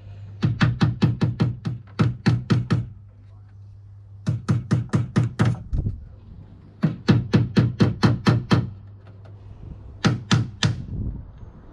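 Hammer tapping small nails into timber window beading, in four quick runs of even strikes about five a second with short pauses between them; the last run is short.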